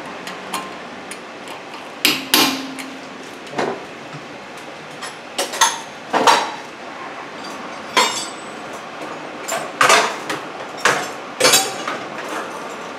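Hammer tapping a brake rotor to seat it snug on the wheel hub: about a dozen sharp metallic knocks at irregular spacing, some ringing briefly.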